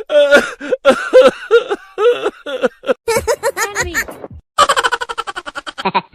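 Comedy laughter sound effect: a run of short, pitched, bending 'ha-ha' syllables. After a short break a second effect of fast chattering pulses starts, about eight a second.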